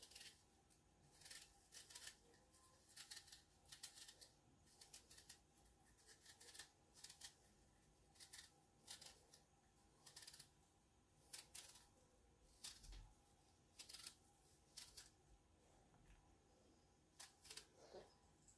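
Faint, short scraping strokes of a small knife cutting the peel from an apple, one or two a second at an uneven pace.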